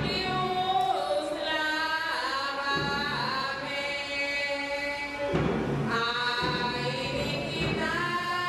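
Music with singing: a melody in long held notes that slide from one pitch to the next, with a couple of short breaks.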